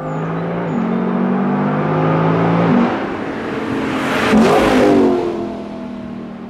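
Lexus LC 500's naturally aspirated 5.0-litre V8 accelerating hard toward the listener, revs climbing with an upshift about three seconds in. It passes by loudest about four and a half seconds in, its pitch dropping as it goes away, then fading.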